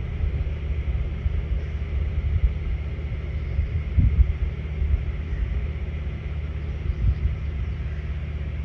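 A steady low rumble with a few soft knocks.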